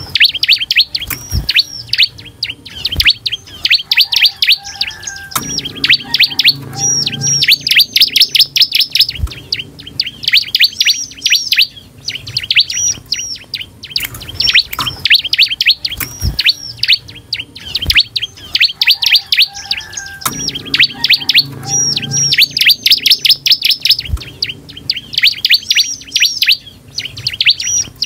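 Bar-winged prinia (ciblek) singing hard and without pause: rapid high chirps run into fast trills, the energetic 'gacor' song used as a lure to make other prinias answer. The same song passage repeats about every 14 seconds, with a few dull knocks.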